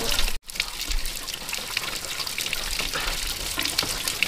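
Water running and splashing steadily, with a brief complete dropout about half a second in.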